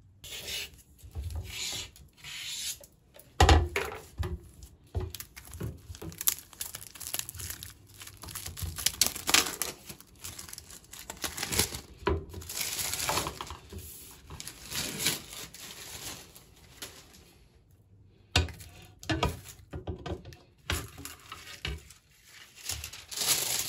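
Thin protective plastic film being peeled and crumpled by hand, with a glass shelf handled over a ceramic sink: irregular rustles, crinkles and tearing sounds broken by scrapes and knocks, the sharpest knock about three and a half seconds in.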